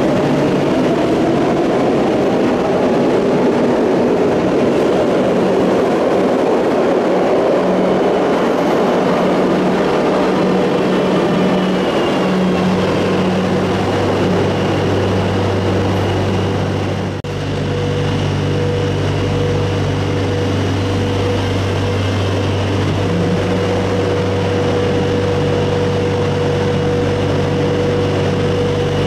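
Madrid Metro train at a station. An electric traction whine rises in pitch over running noise in the first several seconds, then settles into a steady low electrical hum with a higher steady tone.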